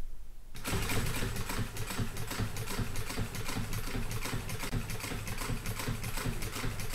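Heavy-duty sewing machine top-stitching a canvas vinyl-top panel at a slow, steady speed: a motor hum under an even, rapid ticking of the needle strokes, starting about half a second in.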